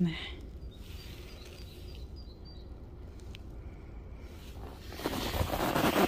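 Low outdoor wind noise with a few faint high chirps, then about five seconds in a louder burst of rustling and crunching as the hand holding the bird moves down toward the snow.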